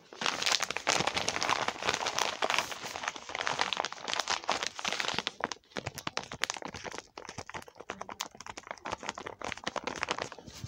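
Plastic packaging crinkling and crackling as it is handled, a dense run of small crackles that thins out a little about halfway through.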